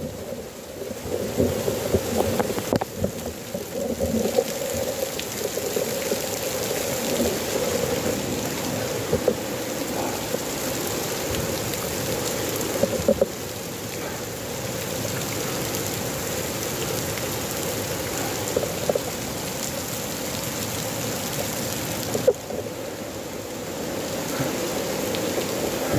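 Heavy rain falling steadily, with scattered sharp taps of drops.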